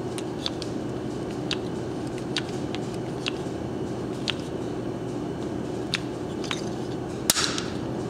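A one-handed bar clamp's trigger being squeezed over and over, giving about ten short, sharp clicks at uneven intervals as it presses a fitting into nylon fuel line. The loudest click comes about seven seconds in.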